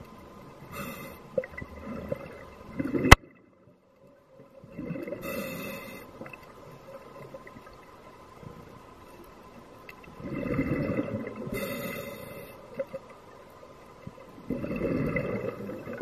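Scuba diver's breathing recorded underwater: the hiss of the regulator on each breath and the gurgling rush of exhaled bubbles, coming in surges a few seconds apart. A sharp click about three seconds in is followed by a moment of near silence.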